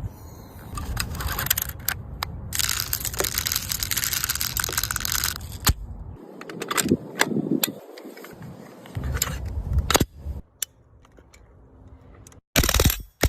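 Umarex M3 grease gun replica being handled: sharp clicks and rattles, with a loud stretch of dense crackling noise about 2.5 to 5.5 seconds in. There are brief cut-outs near the end.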